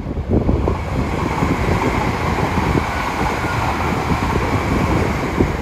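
Yamagata Shinkansen E3-series 'Tsubasa' train running past close by: a loud, steady rush of wheel and running noise that swells up at the start and holds.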